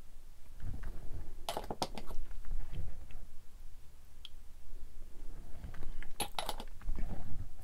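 Hands handling small plastic model-kit parts and a glue bottle close to the microphone: low rubbing and thumps, with two clusters of sharp plastic clicks, about a second and a half in and again about six seconds in.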